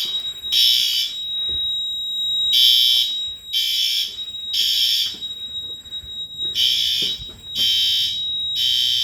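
Fire alarm horns on a Mircom FA-106-R system sounding in a temporal-3 pattern: three harsh half-second blasts, then a pause, repeated about every four seconds, with a steady high tone underneath. This is the panel in alarm during a system test.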